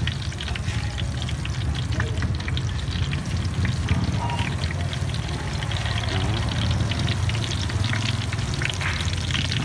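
Battered banana fritters deep-frying in a wok of hot oil: a steady bubbling sizzle with many small crackles, over a steady low rumble.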